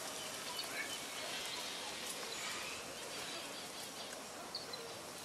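Outdoor garden ambience: a steady hiss with scattered faint bird chirps and a few faint ticks.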